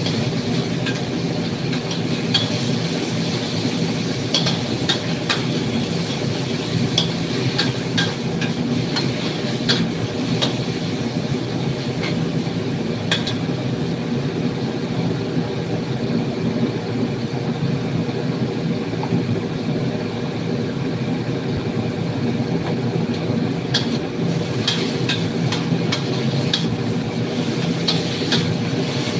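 Metal spatula scraping and clicking against a wok while stir-frying meat, over a steady low hum.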